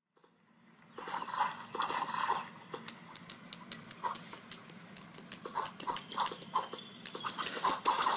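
Dog whimpering in short repeated whines, with sharp taps of its claws on a tablet's glass screen as it paws at the game.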